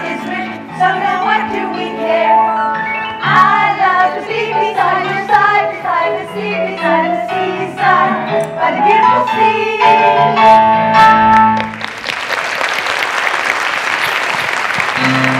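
A song from a stage musical: voices singing a melody over instrumental accompaniment. The song ends and the audience breaks into applause for the last few seconds.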